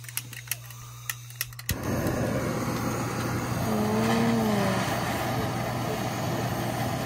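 Handheld butane gas torch being lit: several sharp clicks of its igniter, then the flame catches about two seconds in and burns with a steady hissing rush.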